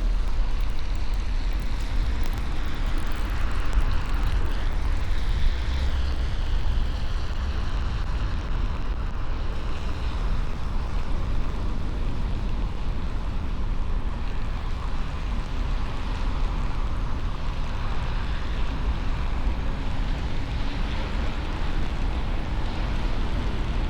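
Car driving steadily: a continuous low rumble with rushing road and wind noise.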